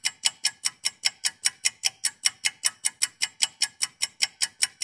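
A steady, fast ticking, about five sharp clicks a second, like a clock tick used as a sound effect under the title text.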